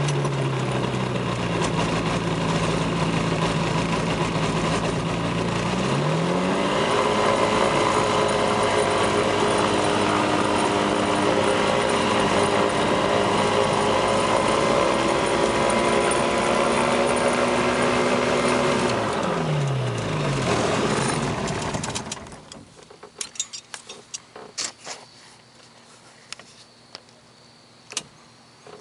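FlightStar ultralight's engine running on the ground, rising in pitch a few seconds in and holding there, then dropping back and shutting off. A few faint clicks and knocks follow once it stops.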